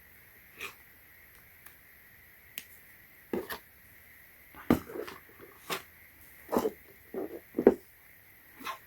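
Scattered, irregular clicks and light knocks of a phone and a magnetic USB-C charging cable being handled and plugged in.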